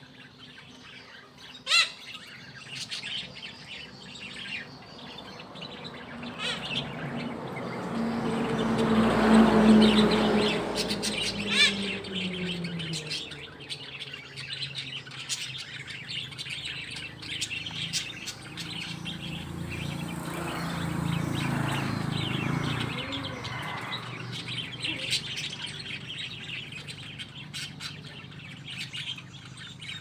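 Baby chicks and ducklings peeping in quick, short high chirps throughout. A low rumbling sound swells and fades twice, loudest about ten seconds in.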